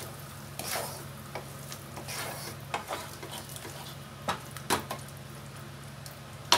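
A wooden spatula stirring and scraping a thick onion-tomato masala with curd and cream as it sizzles in a non-stick kadai, with a few short knocks of the spatula on the pan, the sharpest near the end. A steady low hum runs underneath.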